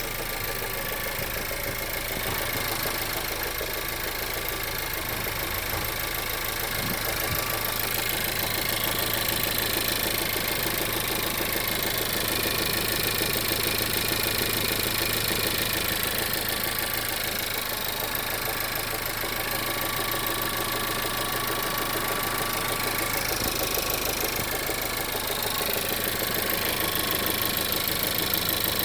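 1.4 TSI (CZDA) turbocharged four-cylinder petrol engine idling warm with a steady, strange knock. The knock comes only on the warmed-up engine and goes away when the automatic gearbox is shifted into Drive.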